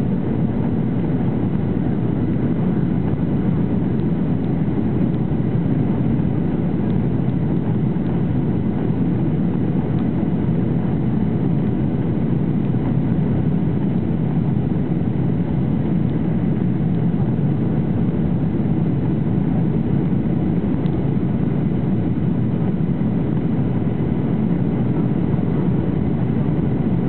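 Steady cabin noise of a Boeing 737-800 in flight: an even, low drone of engines and airflow heard from inside the cabin.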